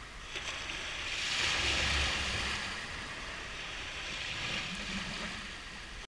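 Small waves breaking and washing up a flat sandy beach, the wash swelling about a second in and again near the end.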